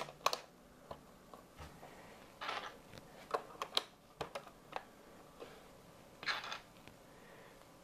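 Plastic Lego bricks clicking and tapping as pieces are pressed onto a model wall and handled, with a couple of short rustles as loose pieces are moved on the table.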